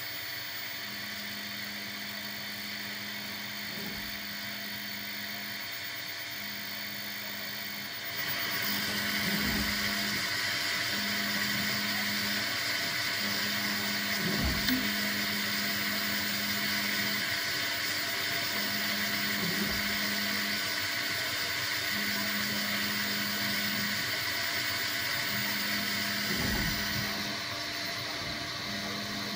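Bambu Lab P1S 3D printer purging the old white filament out of its nozzle after an AMS filament change: the extruder motor hums in short repeated spells while a steady rushing noise rises about eight seconds in and falls back near the end. A few dull low thumps come every few seconds.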